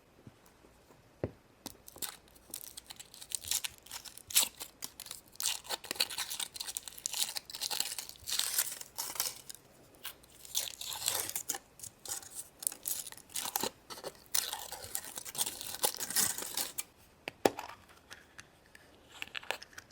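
Foil and plastic wrappers crinkling and tearing in quick, irregular bursts as chocolate surprise eggs are unwrapped and opened, with some crunching, stopping a few seconds before the end.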